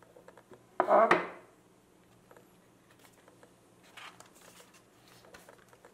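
Cardboard smartphone box of a Xiaomi Mi 8 being handled: the black inner box is slid out and its lid lifted, with faint rubbing and light taps of card on card and one brief louder sound about a second in.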